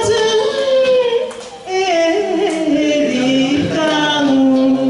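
Music: a single melody line of long held, wavering notes that step up and down in pitch, dipping briefly about a second and a half in.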